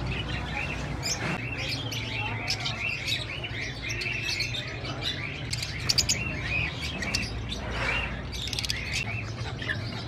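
A shopful of caged birds chirping and chattering together in a constant stream of short, repeated chirps, over a low steady hum. About six seconds in there is a brief burst of sharp clicks.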